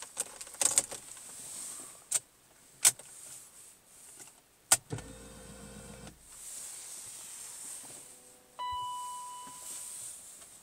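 Failed start attempt on a BMW E39 540i with a faulty starter: several sharp clicks, then a brief low whirr of about a second and a half without the engine catching, and a steady tone about three seconds later.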